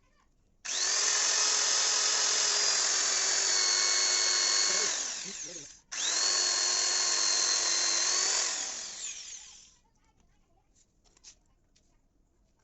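A small electric motor whines as it spins up quickly and runs steadily for about five seconds, then winds down. It is switched on again almost at once, runs for about four more seconds and winds down again.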